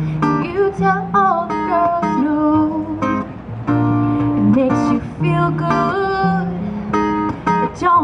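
Acoustic guitar strummed in changing chords through a PA, with a woman's voice singing a melody over it in places.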